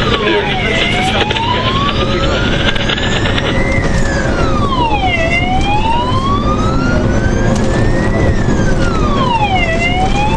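Wail siren of a MAN CAS 24 fire tender, heard from inside the cab while it drives to a call. Each cycle rises slowly for about three seconds and drops quickly, repeating about every four and a half seconds, over the steady rumble of the engine and road.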